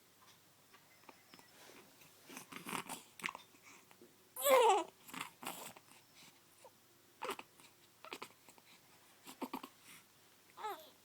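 A baby's scattered soft short sounds, with one short, loud vocal sound falling in pitch about halfway through and a fainter falling one near the end.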